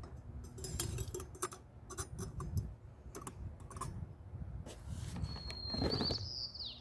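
Spoon stirring rehydrating freeze-dried food in its pouch: light scattered clicks and crinkles, over wind rumbling on the microphone. About five seconds in, a bird gives a held high whistle that falls in pitch.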